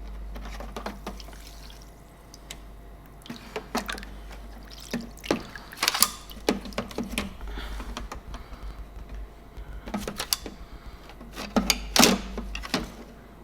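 Toolpro ultrasonic parts cleaner running with rusty tools in its heated bath: a steady watery hiss with irregular sharp clicks and splashy crackles.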